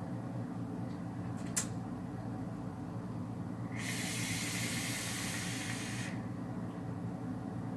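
A single click, then a breathy hiss lasting about two and a half seconds from a hit on a dual-coil rebuildable tank atomizer vape, over a steady low hum.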